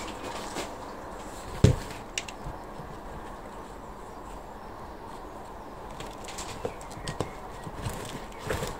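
Plastic plant pots and a plastic plant label being handled while potting kale seedlings: quiet rustling, one sharp knock about a second and a half in, and a few light clicks near the end.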